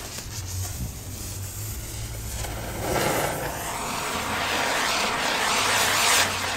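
Firework wheel spinning on a post, its burning tubes hissing as they spray sparks. The hiss swells into a loud rushing about three seconds in as the wheel flares, then eases slightly near the end.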